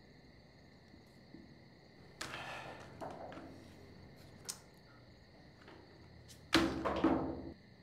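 Two sudden slapping hits with a whooshing tail, playing cards thrown down on the table, the second, about six and a half seconds in, the louder, over a faint steady chirring of crickets.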